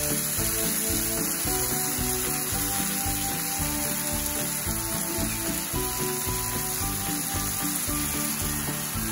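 Potatoes, peas and onion sizzling steadily in a frying pan, just after lemon juice is squeezed in. Background music with a melody plays over it.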